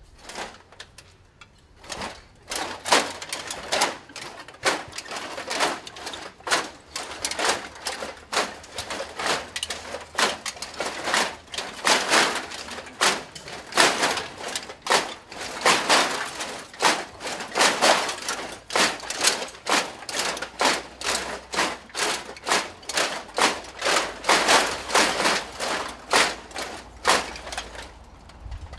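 Clattering and rattling of costumes covered in many small shiny pieces, shaken in a loose rhythm of about two strokes a second as the wearers walk. It starts about two seconds in.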